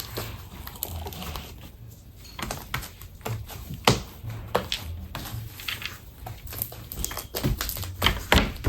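Homemade fluffy slime made with shaving cream being worked by hand: irregular small clicks and crackles, a few louder than the rest.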